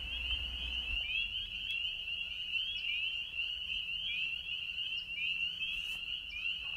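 A steady, high-pitched animal chorus: many fast, overlapping trills running without a break.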